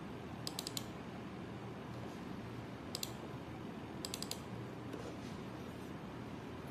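Computer mouse clicking in quick runs, double-clicks opening a folder: a cluster of about four clicks half a second in, two around three seconds, and four more just after four seconds, over a faint steady room hum.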